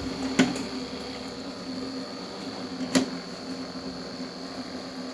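Two sharp knocks, about two and a half seconds apart, from thick copper winding wire and the winding tool being worked through a toroidal transformer core by hand. A steady low hum with a faint high whine runs underneath.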